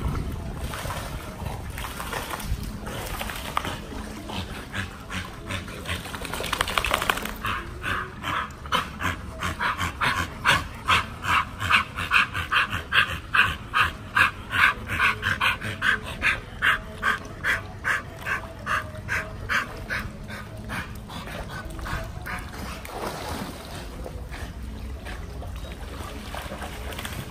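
A pit bull panting in a fast, even rhythm, about two to three breaths a second. The panting is strongest through the middle of the stretch.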